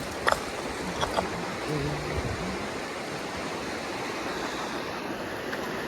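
Steady rush of flowing river water, with a few sharp clicks in the first second and a short low hum around two seconds in.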